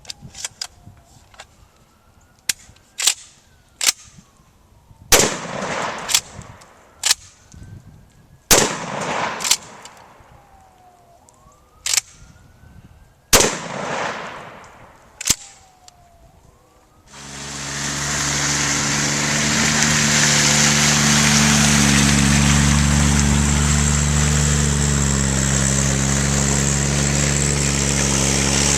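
A string of about a dozen gunshots at uneven intervals, the louder ones trailing off in echoes. A little past halfway the shooting stops and an engine starts up and runs steadily.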